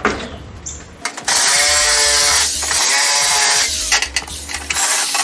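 Handheld power saw cutting through the riding mower's plastic body shell. It starts with a buzzing motor whine about a second in and runs in bursts with brief pauses, after a few knocks as the panel is handled.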